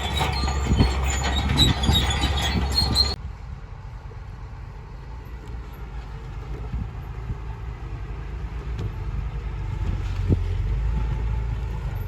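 Heavy earthmoving machinery at work: for about three seconds a loud, squealing metallic clatter like crawler tracks with an engine running under it, then an abrupt cut to a quieter low engine rumble with occasional knocks that slowly grows louder.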